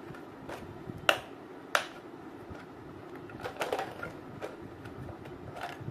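Hard plastic toy doctor-kit case handled and turned over in the hands: sharp plastic clicks and knocks, the two loudest between one and two seconds in, then a cluster of smaller clicks and rattles about halfway through.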